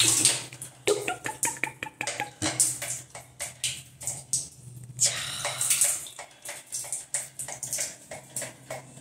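Water poured from a cup and splashing onto a plastic duck water-wheel bath toy, with bursts of splashing and many quick clicks and rattles as the toy's wheel and balls turn.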